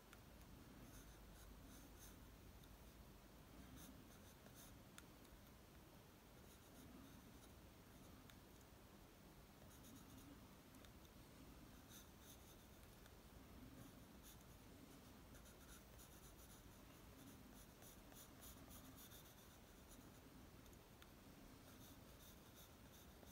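Faint scratching of a graphite pencil on drawing paper: quick short sketching strokes coming in runs with brief pauses.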